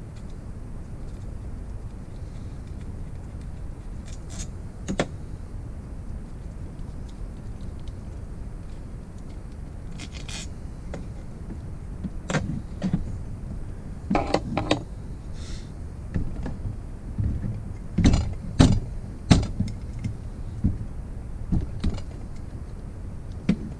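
Hand tools and metal parts clinking and knocking as the crankcase of a Falcon 911 motorized-bicycle engine is taken apart. The clicks come sparsely at first, then in quicker clusters from about halfway through, over a steady low rumble.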